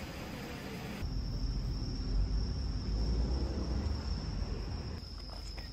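Insects singing in one steady high-pitched note that comes in about a second in, over a low rumbling background; a brief hiss comes before it.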